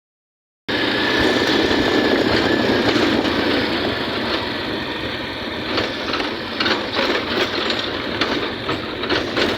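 Steady rumbling noise of a moving vehicle, with rattling clicks joining it about halfway through.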